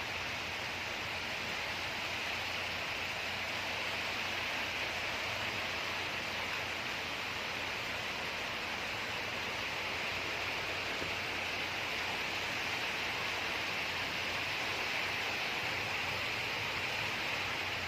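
Steady heavy rain from a typhoon, an even hiss with no breaks.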